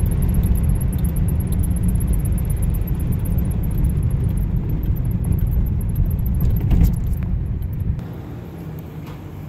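A 1954 Ford Crestline on the move, heard inside the cabin: steady, low engine and road noise. About eight seconds in it drops away to a quieter spell with a light jingle of keys.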